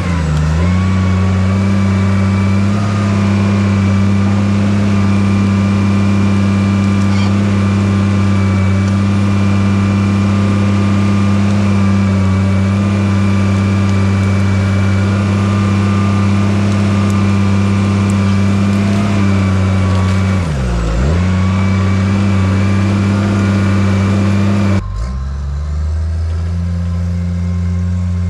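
Diesel engine of a heavy earthmoving machine running steadily at high revs. Its pitch dips sharply about three quarters of the way through and recovers, and near the end the sound turns suddenly duller.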